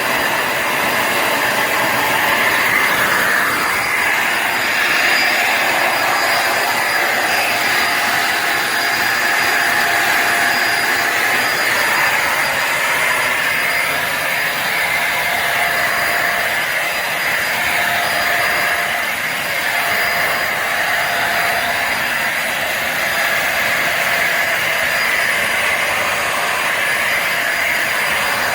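Bissell Symphony Pet vacuum and steam mop running steadily: a continuous motor drone with a faint whine over it.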